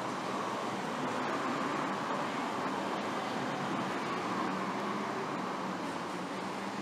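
Steady city street traffic noise: the even hum of cars on the road.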